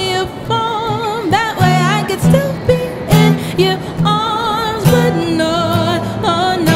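A woman singing a slow ballad with wavering vibrato on held notes, accompanied by a strummed acoustic guitar.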